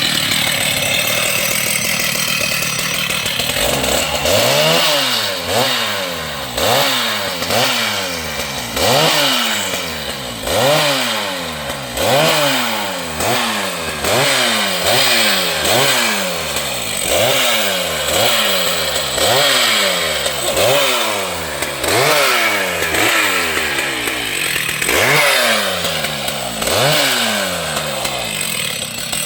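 Large two-stroke chainsaw running, steady for the first few seconds, then its engine pitch climbing and dropping back about once a second.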